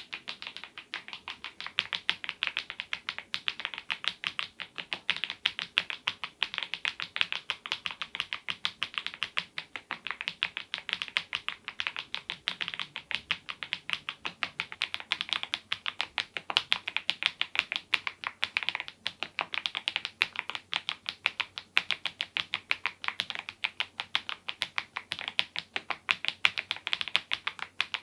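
Mechanical keyboard with HMX Cheese switches and Keytok smile-profile keycaps being typed on fast and continuously: a steady stream of sharp keystroke clacks, several a second.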